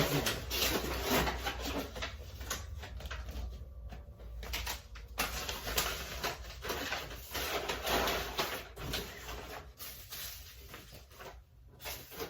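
Handling noises of packaging: irregular rustling and scraping with scattered light taps and knocks as boxes and cases are moved about.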